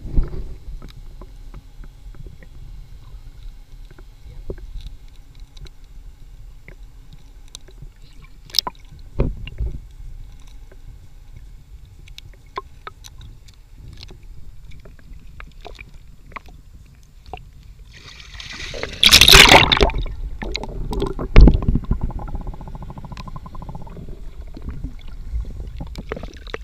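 Muffled underwater sound picked up by a submerged camera: a low steady rumble with scattered clicks, a loud rushing burst of water about nineteen seconds in, and a sharp thump a couple of seconds later.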